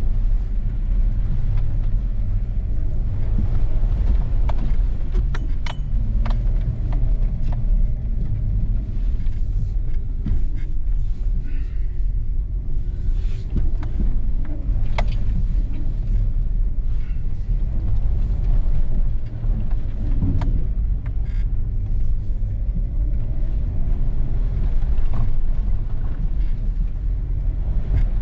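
4x4 vehicle driving off-road: a steady low engine and road rumble, with scattered short clicks and knocks throughout.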